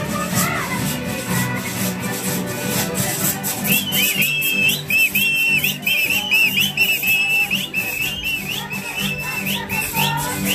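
Music with a repeating low bass line and a steady shaker-like beat. From about four seconds in, a shrill whistle plays a short rising figure again and again, about twice a second.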